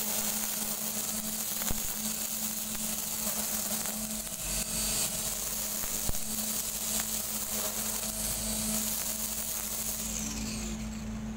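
STIHL FSA 56 battery-powered string trimmer running steadily as it cuts grass: a constant motor hum under a high hiss from the spinning line. The hiss drops away near the end.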